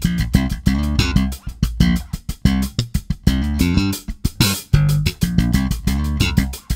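Background music: a groove of plucked electric guitar over bass guitar with a steady beat.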